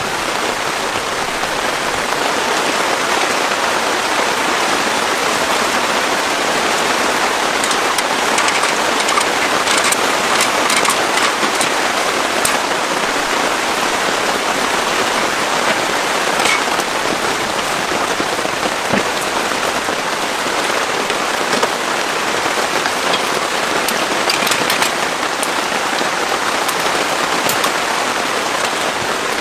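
Heavy rain falling steadily, with scattered sharper drop hits standing out now and then.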